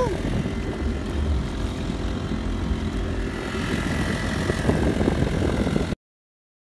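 Honda GX35 35cc four-stroke engine of a kayak-style outboard running steadily under way. The sound cuts off suddenly about six seconds in.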